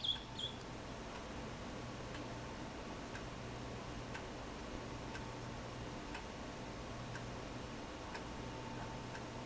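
Faint, even ticking about once a second over a low steady hum, with two short high beeps at the very start.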